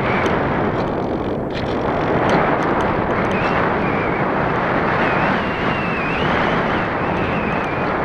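Wind rushing and buffeting over the microphone of an action camera mounted on a Parkzone Radian RC glider in flight. From about three seconds in, a faint high whine wavers in pitch under the rush, typical of the plane's electric motor and propeller.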